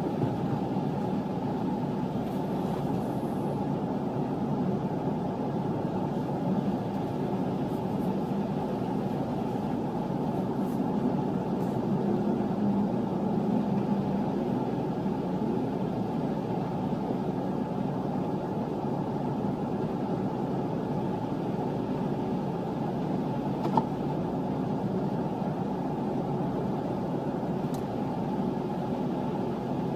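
Steady, muffled rumble of car engines idling while the cars stand still in a queue.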